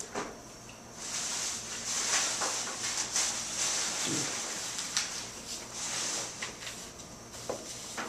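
Scratchy rustling and scraping of paper close to the microphone, with many small taps. It starts about a second in and stops near the end.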